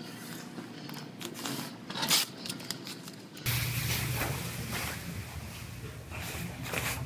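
Masking tape being pulled off its roll and ripped, then thin plastic masking sheeting crackling and rustling as it is spread and pressed down. A steady low hum sets in about halfway through.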